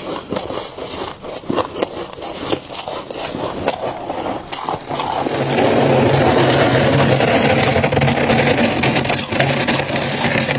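Gloved hands scraping and scooping thick freezer frost from the inside of a chest freezer: scattered crunches at first, then from about five seconds in a loud, continuous crunching scrape that stops near the end.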